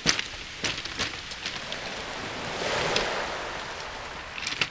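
A wave washing up a shingle beach: a hiss that swells and fades around the middle, over scattered sharp clicks and cracks.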